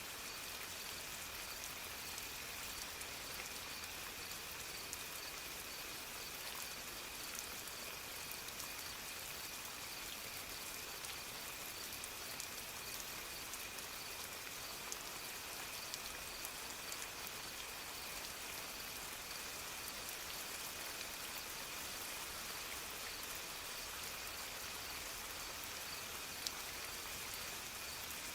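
Steady soft rain: an even hiss of rainfall with scattered small drop ticks.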